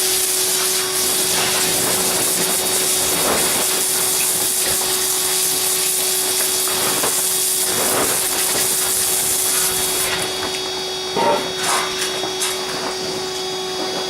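Diamond saw blade cutting red porphyry: a steady, loud hiss over a constant motor hum. About ten seconds in the cutting hiss drops away, a few knocks follow, and the hum runs on.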